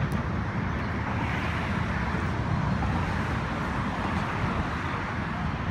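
Steady rumble of road traffic on the bridge roadway beneath the walkway, with no single vehicle standing out.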